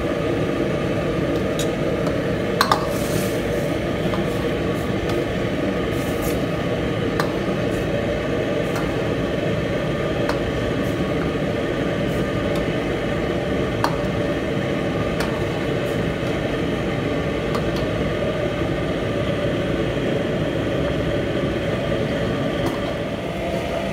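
A metal ladle stirring thick tomato sauce in a steel wok, clinking and scraping against the pan every second or two, over a steady low kitchen roar.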